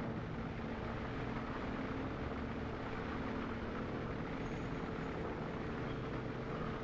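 Steady background noise with a constant low hum, unchanging throughout.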